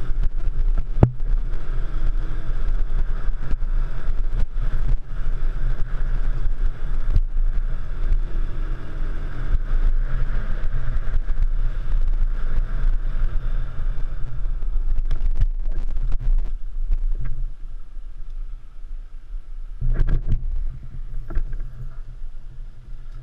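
Single-cylinder dual-sport motorcycle being ridden on a dirt trail, the engine running steadily with frequent knocks and rattles from the rough ground. It drops quieter about two-thirds of the way through, with a brief burst of throttle near the end.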